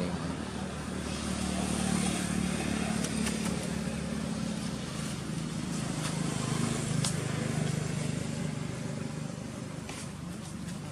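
A low, steady engine hum that grows louder about two seconds in and fades near the end, with a few faint ticks over it.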